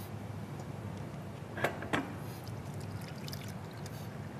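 Pandan-green rice-flour batter being poured from a bowl through a metal mesh sieve into a stainless steel pot: a soft, steady trickle, with two light clinks a little under two seconds in.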